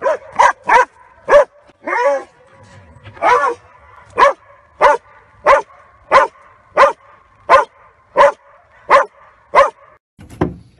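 Belgian Malinois barking up at a man standing still in a training blind, the bark-and-hold of protection work. A few quick, uneven barks open, then a steady run of sharp barks about every two-thirds of a second.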